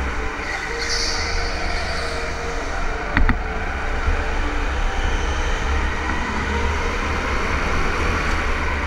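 Go-kart running: a steady low rumble, with one sharp knock about three seconds in.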